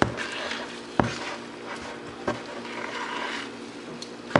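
Hands squishing and kneading crumbled cake mixed with frosting in a bowl, with a few sharp knocks.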